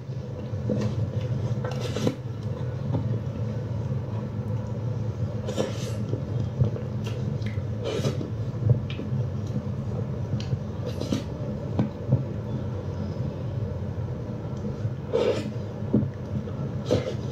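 Close-up eating sounds of a person biting into and chewing a meat sandwich, with scattered short clicks and crackles, over a steady low hum.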